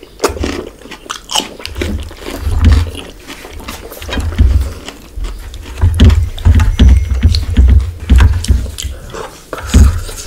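Close-miked wet chewing and lip smacking on a mouthful of fish head curry: a run of sticky mouth clicks over repeated deep low thuds.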